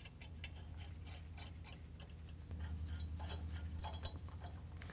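Faint, scattered small metallic clicks of washers and nylock nuts being spun by hand onto threaded carriage bolts, over a steady low hum that gets louder about halfway through.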